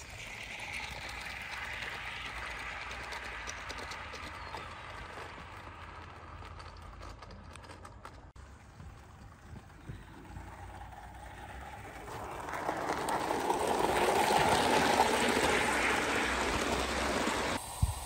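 O gauge live steam locomotive running on the track: a steady hiss of steam and wheel noise that grows louder from about twelve seconds in as it comes close, then cuts off abruptly near the end.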